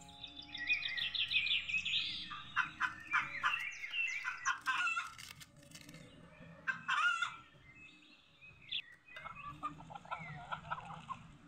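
Chickens clucking: a quick run of short calls for the first few seconds, another call about seven seconds in, and more clucking near the end.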